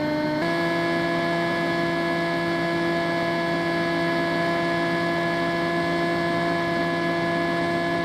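Electric motor and pusher propeller of a ZOHD Dart XL flying wing running steadily under power, heard from on board the plane over a rush of air. Its whine steps up slightly in pitch about half a second in as the throttle is raised for a climb.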